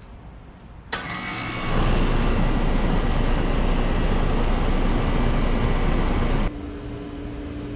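Outdoor air-conditioner condenser unit starting up: a click about a second in, then the compressor and fan come on with a loud steady low hum and rushing fan noise. Near the end the sound changes abruptly to another unit running with a quieter steady hum.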